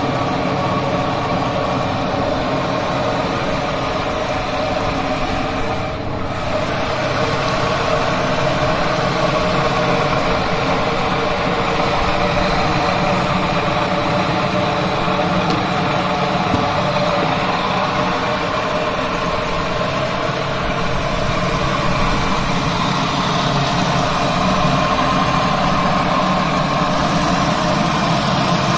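Motor of a tomato paste machine running steadily as tomatoes and peppers are pressed through it.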